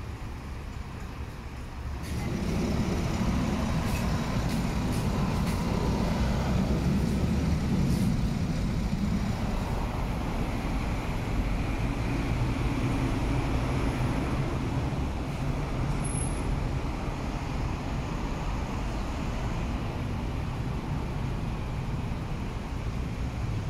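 Road traffic with buses and cars passing: a steady drone of engines and tyres. It grows louder about two seconds in and eases slightly after the first ten seconds.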